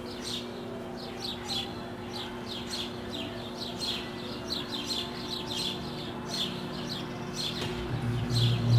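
Mallard ducklings peeping: many short, high, falling chirps, several a second. Near the end a low steady hum starts up and becomes the loudest sound.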